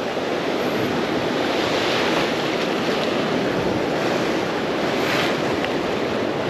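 Ocean surf washing against a rocky shore, a steady rushing wash that swells slightly twice.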